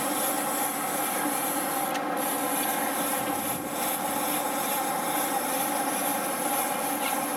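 Sportfishing boat's engine droning steadily under a high, hissing whir from a big conventional reel as a yellowfin tuna is fought on the rod; the hiss breaks off briefly about two seconds in.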